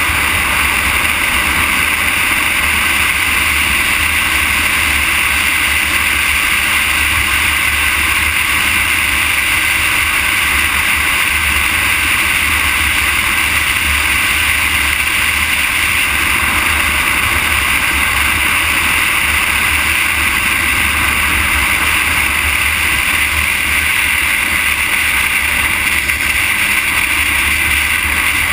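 Steady wind and road noise from a camera riding along an asphalt highway: an unbroken rushing hiss with a low rumble beneath.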